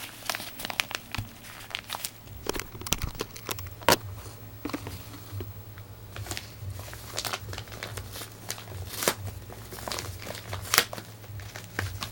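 Retail packaging of Apple in-ear headphones being handled and opened: irregular crinkling and crackling with scattered sharp clicks, and a few louder snaps about four seconds in, about nine seconds in and near the end. A steady low hum runs underneath.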